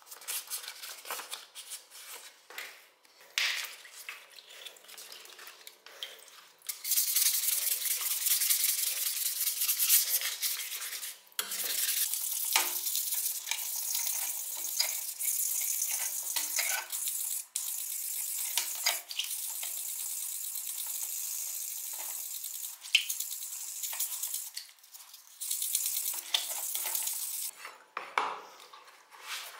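Wet sanding of iron scissor blades under water with waterproof abrasive paper, probably 400 grit: a rapid, hissy scrubbing with water stirring around the hands. It comes in scattered strokes at first, turns nearly continuous after several seconds, and breaks off briefly a couple of times near the end.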